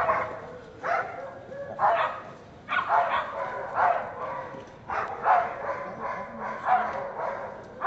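Groenendael (Belgian Shepherd) barking repeatedly at a training helper in protection work, short loud barks about once or twice a second.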